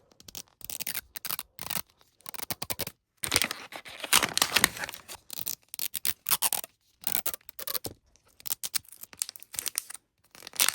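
Plastic toy capsule packaging being handled, torn and crinkled open in irregular rustling bursts with short pauses.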